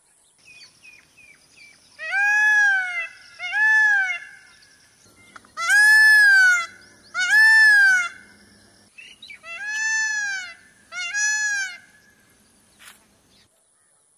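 Peacock (Indian peafowl) calling: six loud calls in three pairs, each call just under a second long, rising and then falling in pitch.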